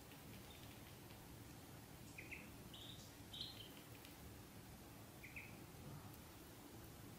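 Ducklings peeping faintly: short high peeps, three close together about two to three and a half seconds in and one more a little after five seconds.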